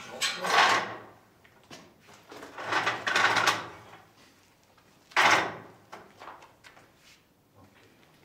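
Wooden post being worked into place against stone, making three bursts of scraping and knocking; the middle one is the longest and the last starts sharply.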